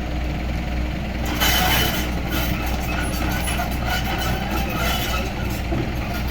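Mini excavator engine running steadily with a deep hum, with a brief louder rush of noise and some clatter about a second and a half in.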